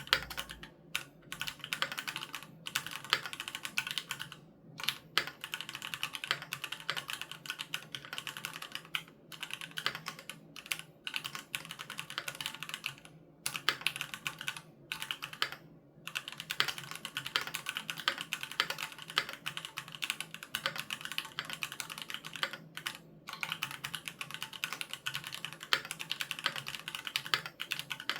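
Continuous fast typing on a Keychron Q3 mechanical keyboard with Gateron G Pro Red linear switches: a rapid stream of key clacks broken by brief pauses, about four seconds in, twice between thirteen and sixteen seconds in, and once near twenty-three seconds in.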